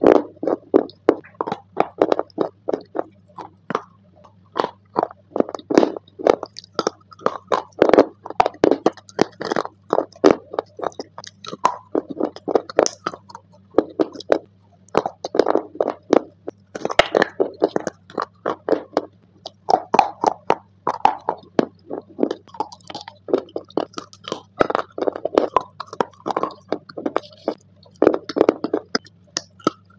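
Close-up chewing of a gray, clay-like substance: wet, crunchy bites and chews following one another several times a second, over a steady low hum.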